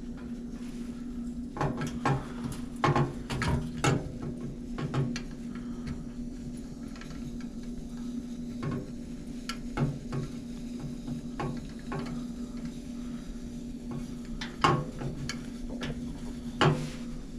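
MSR Firefly liquid-fuel stove burning its priming fuel to warm the burner before it will run, over a steady low hum, with irregular sharp metal clicks and knocks as the stove's fuel line and the fuel bottle's pump are handled; the knocks come in a cluster in the first few seconds and again singly later.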